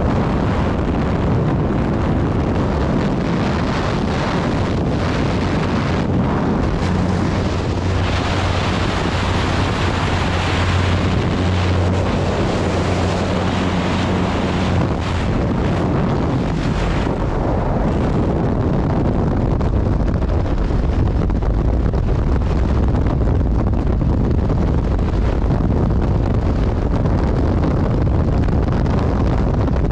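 Wind rushing over the microphone at a jump plane's open door, with the plane's engine and propeller drone, a steady low hum, under it. A little past halfway the skydivers exit and the sound becomes the steady deep wind rush of freefall.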